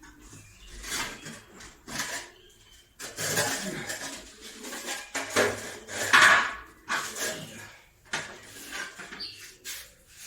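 Kitchen dishes, pots and cutlery clattering as they are handled, in irregular knocks and scrapes, the loudest about six seconds in.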